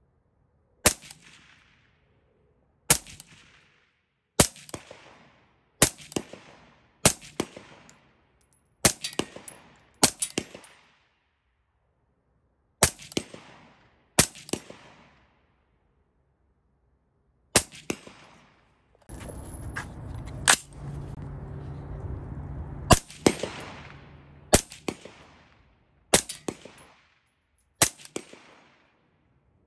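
Suppressed AR-15-style Centurion Arms rifle fired in slow, aimed single shots, one about every one to three seconds, each a sharp report with a short echoing tail. For a few seconds past the middle, a steady low rumbling noise sounds between the shots.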